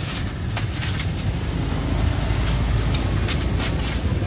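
Ice being scooped from a cooler into a plastic drink cup: a few short, sharp clatters over a steady low rumble.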